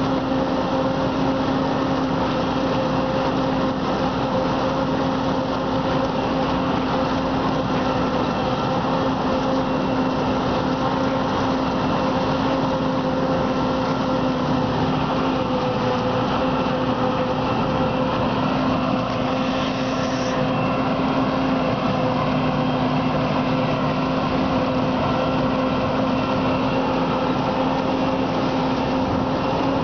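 Self-propelled forage harvester chopping standing maize for silage, with a tractor and trailer running alongside. The machinery gives a steady drone with a constant low hum.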